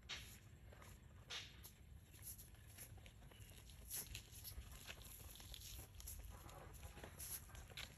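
Near silence with faint, scattered scuffs and light taps as a baby monkey shuffles on stone paving tiles, a few each second or two apart.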